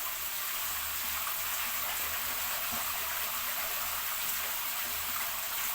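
Water pouring steadily as hot and cold water are mixed for a baby's bath.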